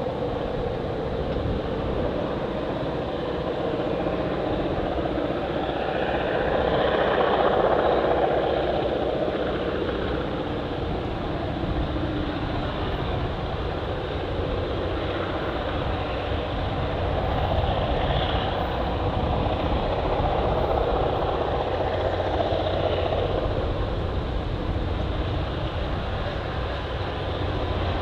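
GP38-2 diesel-electric locomotive's EMD 16-cylinder two-stroke engine working flat out as it hauls a heavy train of scrap steel cars toward the listener. The engine sound swells and eases, loudest about seven seconds in and again around twenty seconds in.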